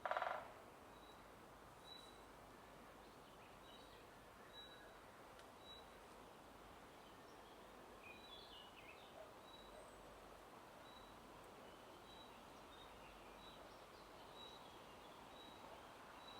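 Faint woodland ambience: a soft, even hiss of wind in the leaves, with one bird repeating a short high note steadily, a little more than once a second, and scattered faint chirps from other birds. A single louder pitched bird call sounds briefly right at the start.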